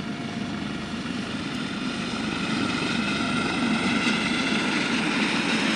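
Pakistan Navy Harbin Z-9 helicopters flying past, a steady rotor and turbine noise that grows gradually louder as they approach.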